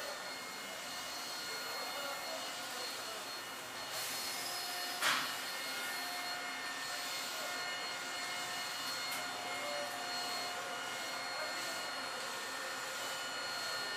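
Steady hiss and hum inside an Eizan Electric Railway Deo 700 series railcar, with several faint steady tones running through it and a short sharp sound about five seconds in.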